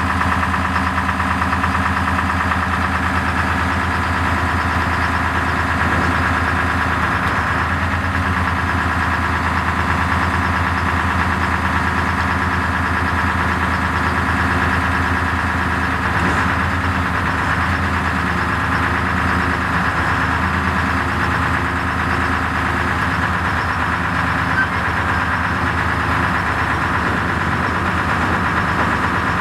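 1979 P&H 430 ATC truck crane's chassis engine running steadily, driving the hydraulic outriggers through its power steering circuit.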